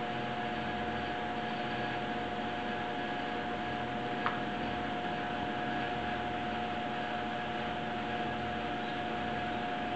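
Electric floor fan running with a steady whooshing hum and a constant tone. One brief tap stands out about four seconds in.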